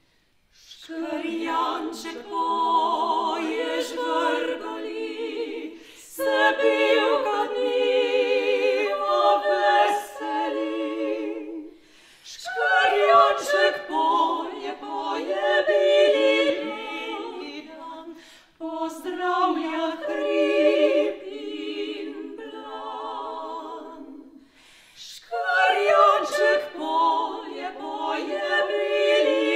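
Trio of trained female voices singing a classical song a cappella, in harmony with wide vibrato. The singing comes in phrases of five or six seconds, broken by short pauses.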